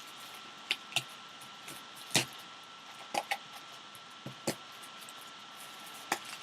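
Scattered sharp clicks and taps of packaging being handled and cut open with a blade, about eight in all, over a thin steady background tone.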